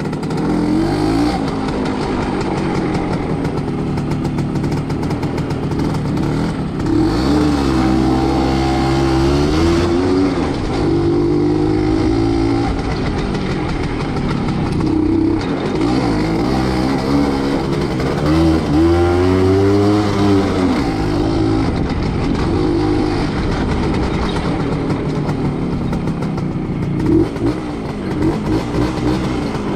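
WSK motorcycle's single-cylinder two-stroke engine running under way, revving up and dropping back several times as it is ridden, with strong rises about a quarter and two-thirds of the way through.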